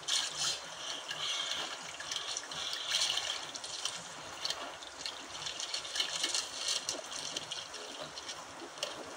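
Seawater splashing and sloshing against a small outrigger boat's hull and outrigger, steady throughout, with a few brief knocks.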